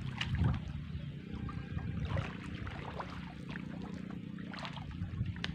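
Water sloshing and splashing around people wading waist-deep, with scattered small splashes and drips over a steady low rumble.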